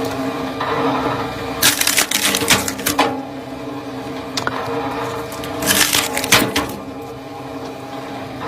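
An engine-driven firewood splitter running steadily, with two spells of wood cracking and splintering as logs split apart, one shortly after the start and one past the middle.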